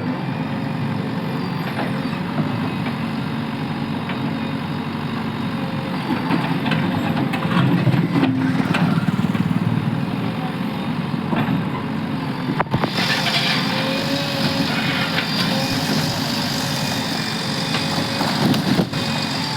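A bulldozer's diesel engine running steadily, with a few sharp knocks along the way. The sound turns brighter and harsher a little past the middle.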